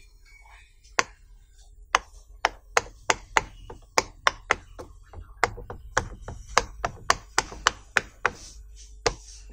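Silicone pop it fidget toy having its bubbles pressed in with a finger one after another: a string of sharp pops, about two to four a second, beginning about a second in.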